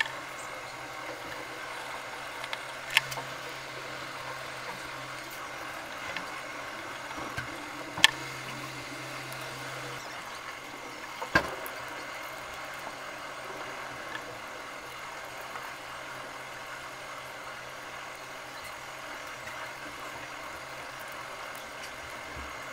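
Steady background hum and hiss with three short sharp clicks spread through the first half.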